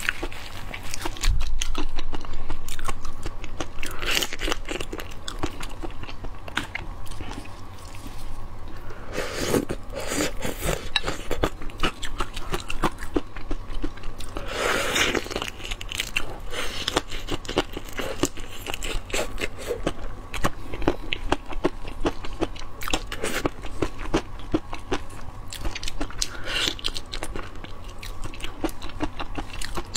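A person eating crunchy food close to the microphone: steady biting, crunching and chewing with many small crackles, with louder bursts about ten and fifteen seconds in.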